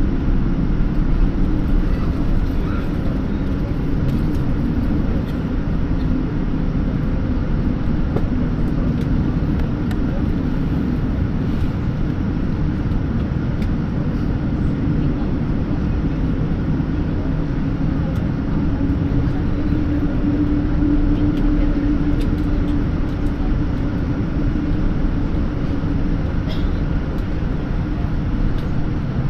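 Steady low rumble inside the cabin of a Boeing 787-10 taxiing after landing, with the engines at idle and a constant drone.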